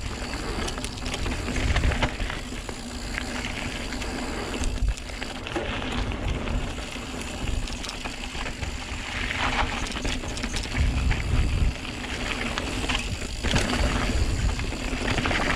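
Santa Cruz Megatower enduro mountain bike descending dirt singletrack at speed: tyres hissing and crunching over packed dirt and loose stones, with short rattles and clicks from the bike over bumps. Louder surges of tyre hiss come about nine and thirteen seconds in, and wind buffets the microphone throughout.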